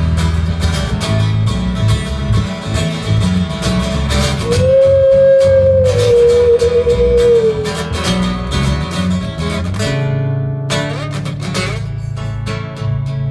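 Live band playing an instrumental break: guitars over bass and drums. About five seconds in, a long held lead note sags slowly in pitch.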